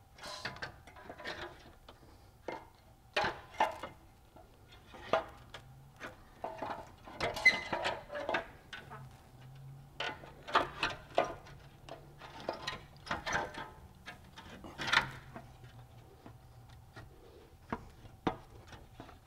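Old rusty exhaust manifold and catalytic converter being wrestled out of the engine bay: irregular metal clunks, knocks and scrapes as it is worked free past the head studs and surrounding parts.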